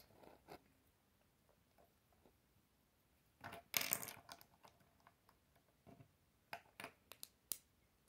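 Plastic Lego bricks clicking and rattling as they are handled and pressed together: a short clatter about three and a half seconds in, then a run of sharp clicks near the end.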